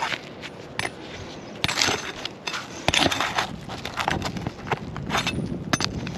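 Roofing nails being worked out of asphalt three-tab shingles: irregular sharp clicks and scrapes of a tool against the nails and gritty shingle surface, busiest about two to three seconds in.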